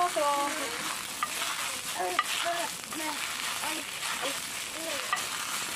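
Bok choy steam-frying in a non-stick frying pan, the liquid sizzling with a steady hiss, while a metal spoon stirs and turns the leaves, giving a few light clicks against the pan.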